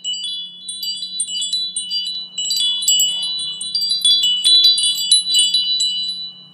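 Tinkling chime sound effect: many quick, high, bell-like notes ringing and overlapping, growing denser and louder from a few seconds in, over a faint steady low hum.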